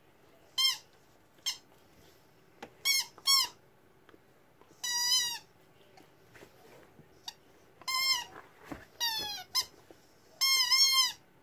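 Squeaky rubber chicken dog toy squealing as a husky bites it: a string of about nine squeaks, mostly short, with two longer warbling ones of about half a second.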